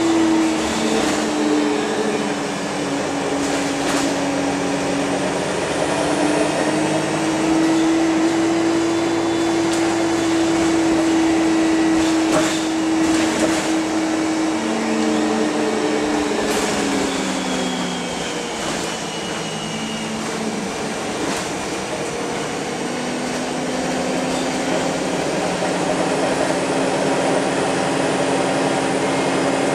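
Wright Streetlite single-deck bus heard from inside the passenger saloon on the move: engine and transmission running with a steady whine that holds, falls away as the bus slows, then settles at a new pitch, over road noise. A few sharp knocks and rattles from the bus body come through.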